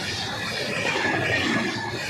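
Express train passing, its wheels and coaches making a steady running noise on the track.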